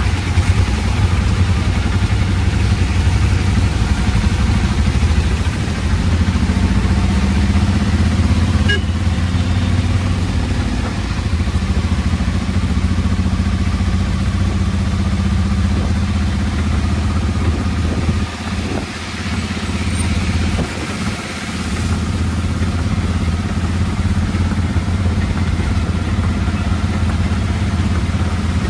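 Auto-rickshaw's small engine running steadily as the vehicle drives, heard from the passenger seat over an even hiss of rain and wet road. The engine note drops away briefly twice, about two-thirds of the way through.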